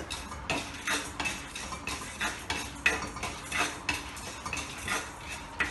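A spatula scraping and knocking against a metal kadai as dry-roasted toor dal and roasted gram are stirred, in quick irregular strokes about three or four a second.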